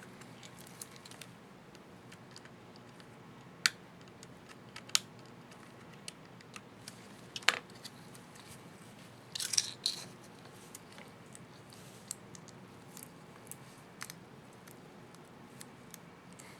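Scattered small sharp plastic clicks from a laptop's Caps Lock keycap and its retainer clips being handled and fitted, with a short burst of clicking and scraping about nine and a half seconds in.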